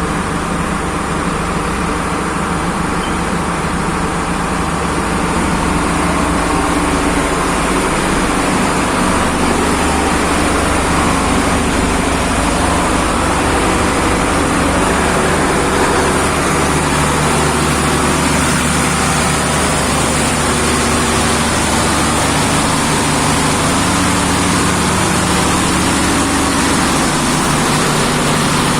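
Cargo pump engine running steadily: a loud, continuous engine drone with several steady tones, getting slightly louder about five seconds in.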